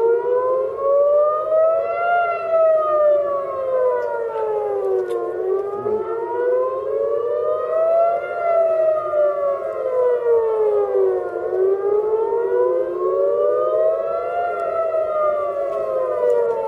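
Civil-defence air-raid sirens wailing, rising and falling in pitch about every six seconds, with two sirens slightly out of step; it is the rocket alert warning of an incoming barrage.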